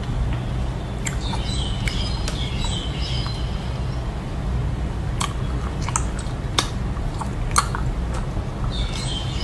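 Close-up mouth sounds of chewing the gummy wax of a wax-bottle candy: scattered wet clicks and smacks, with a few short squeaky chirps, over a steady low hum.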